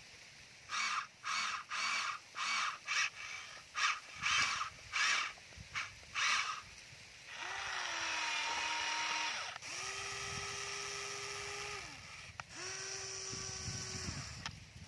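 Crows caw about a dozen times in quick succession. Then the small electric motors of a Huina remote-control toy excavator whine in three runs of two to three seconds each as the machine moves, the first run sinking slightly in pitch.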